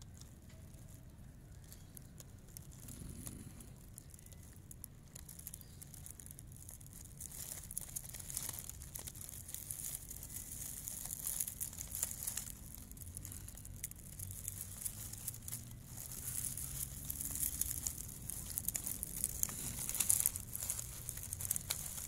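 Dry grass of the nest rustling and crackling close to the microphone: fitful small crackles and rustles, sparse at first and busier and a little louder from about a third of the way in.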